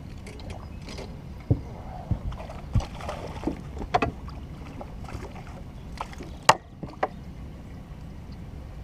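Scattered knocks and thumps of handling gear on a bass boat as a landing net is grabbed and swung over the side to net a hooked fish, the sharpest knock a little past halfway. Steady wind rumble on the microphone underneath.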